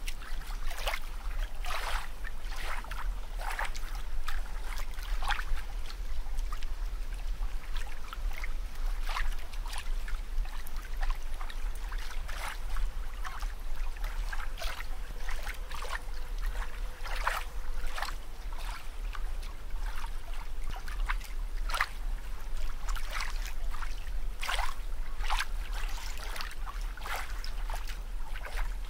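Water splashing and bubbling in small irregular spurts, a few each second, over a steady low rumble.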